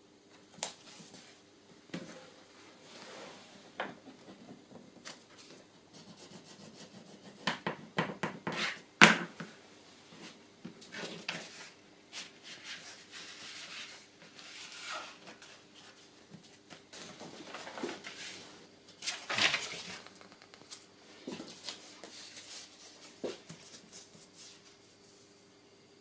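Sheets of card paper being handled and folded by hand: intermittent rustling, sliding and small taps, with the sharpest knock about nine seconds in and a louder rustle near twenty seconds.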